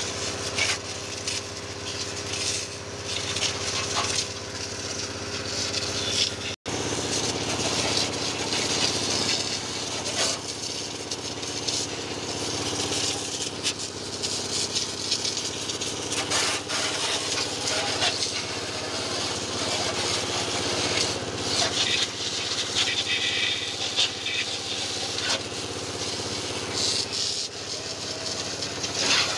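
Pressure washer running, its high-pressure water jet hissing against a tractor over a steady hum.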